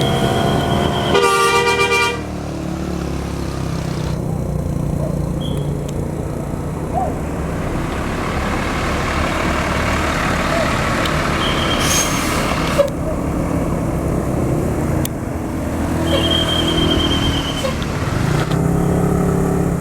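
A tour bus's musical 'telolet' horn sounds in a short blast about a second in, then heavy bus engines run past with road noise.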